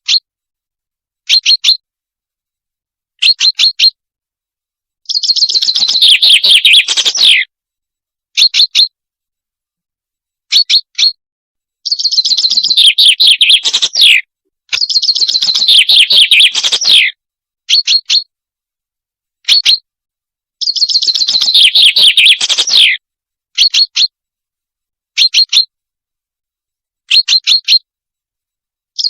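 Recorded song of the bird that hunters call salanj, played as a lure: short sharp chirps, often in pairs, alternating with rapid trilled phrases of about two seconds that fall in pitch at the end, repeated over and over.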